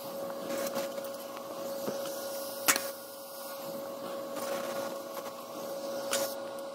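Steady electrical hum of a TIG welding setup, broken twice by a short sharp crackle, about two and a half seconds in and again near the end, as the torch strikes quick tack welds fixing a carbon steel wire across stainless pipe coupons.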